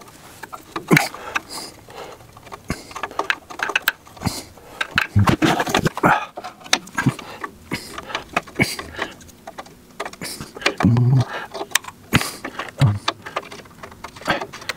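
Irregular metal clicks and clinks of a wrench and a new oxygen sensor being turned and threaded back into the exhaust pipe.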